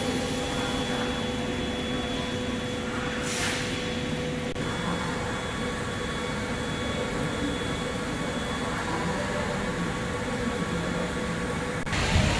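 Steady factory-floor machinery noise with a faint constant hum and whine, a brief hissing swell about three seconds in, and louder noise near the end.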